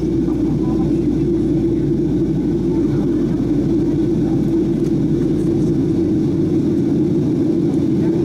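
Steady in-cabin noise of a Boeing 737-800 in flight: a loud, low, even rumble of its CFM56-7B engines and airflow, heard through the fuselage from a window seat behind the wing.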